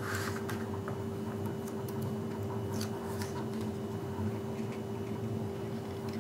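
Paper and tape handled by hand as a small paper cut-out is taped and pressed onto a card: a few faint crinkles and ticks, near the start and again about three seconds in, over a steady low hum.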